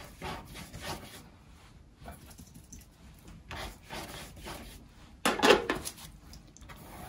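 Loaded watercolour brush dragged across rough watercolour paper in a few broad strokes, laying a yellow ochre wash; the loudest stroke comes about five seconds in.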